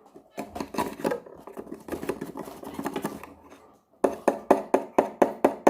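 Spoon stirring a honey and lemon mixture in a small glass, with irregular scraping and clinking, then a run of quick, even clinks about five a second over the last two seconds.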